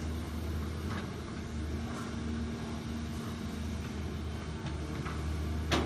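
Diesel engine of a long-reach Volvo excavator running steadily under load while the boom swings out and lowers the bucket. A few faint knocks come about a second apart, and a sharper clank sounds just before the end.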